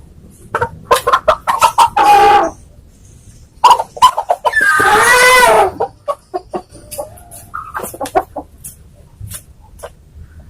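Domestic chicken clucking in quick bursts and letting out two longer squawks, the longer one about halfway through, as it is held and its beak opened to be dosed with medicine; softer clucks follow.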